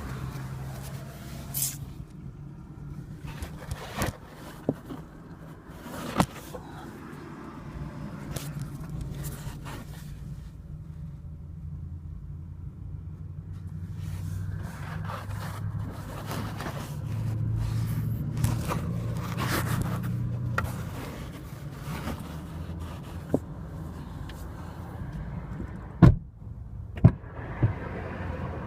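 Cabin sound in a 2015 Kia Rio: a steady low engine and road hum, broken by scattered sharp creaks and clicks, most of them near the start and near the end. These are the squeak from under the driver's seat.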